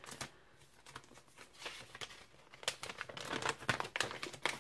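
Paper sheets rustling and crinkling as they are handled, with scattered crackles that grow busier about halfway through.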